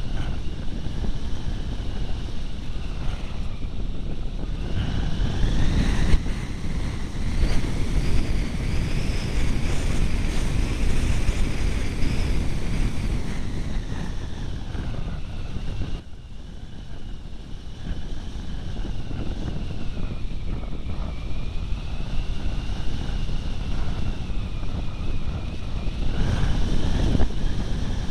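Airflow rushing over the microphone of a camera mounted on a Turnigy Rogue RC glider in flight. A faint high whine slowly rises and falls in pitch, and the rush drops for a moment about halfway through.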